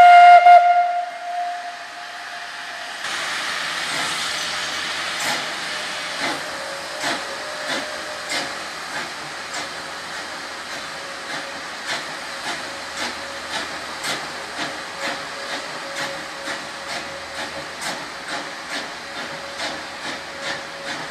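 Steam whistle of the BAM G 3/3 No. 6 steam train sounding briefly at the start and dying away. It is followed by a steady steam hiss and regular exhaust chuffs from the two steam locomotives working the train uphill, the beats quickening from about one to two a second.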